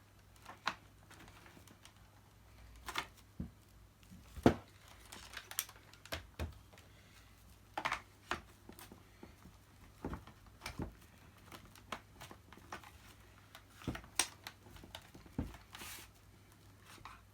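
Plastic parts of a Dyson DC50 upright vacuum being handled and fitted together by hand: scattered clicks, knocks and rustles at irregular intervals, the loudest knock about four and a half seconds in.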